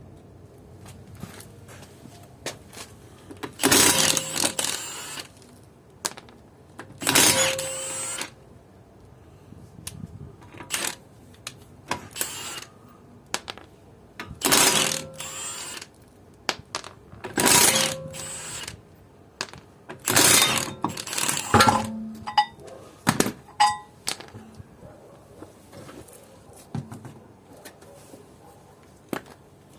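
Cordless impact wrench run in short bursts of about a second each, hammering wheel nuts through a socket, with short metallic clicks between bursts.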